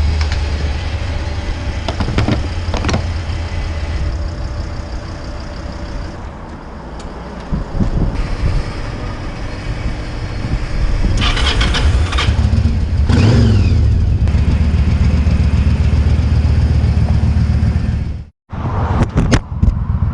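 Motorcycle engine running at low speed and easing off, with a short rising rev about two-thirds of the way through, then running steadily again. The sound cuts out briefly near the end.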